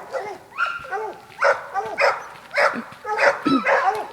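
Hound dogs barking repeatedly, about two barks a second.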